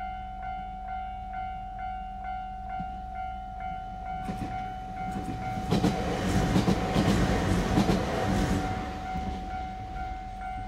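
Railway level-crossing alarm ringing its repeating bell, about two strokes a second, heard from inside a car waiting at the crossing. A train passes from about four seconds in, its rumble and wheel clatter loudest around six to eight seconds and then fading.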